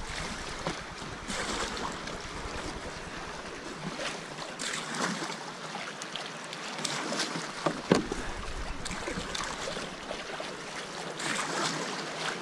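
Sea water splashing and lapping around a kayak as paddles dip, with wind on the microphone. There is one sharper hit about eight seconds in.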